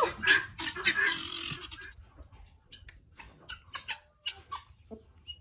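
Lavender Orpington chickens making short clucks and scratching in the dirt. There is a louder stretch of rustling in the first two seconds, then only faint, scattered short sounds.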